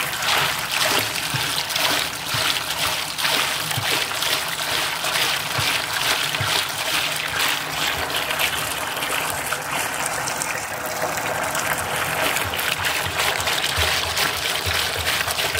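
Fresh palm sap (pathaneer) poured in a thick, steady stream into a large vessel of frothy sap: continuous pouring and splashing of liquid as the pan is filled for boiling into palm jaggery.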